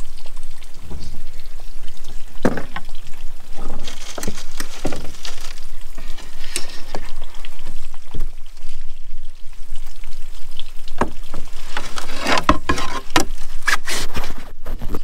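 Water trickling and dripping into the river, with an irregular patter of small splashes.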